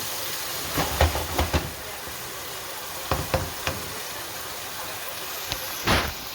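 Food sizzling in a pan, with a cooking utensil knocking against the pan several times in two quick clusters and once more, heavier, near the end.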